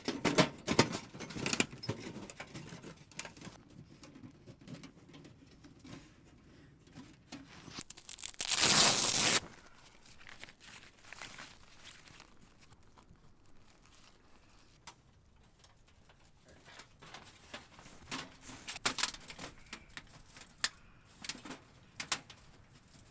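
Rustling, crinkling and knocking of camping gear being handled, with a louder tearing rush lasting about a second and a half about nine seconds in.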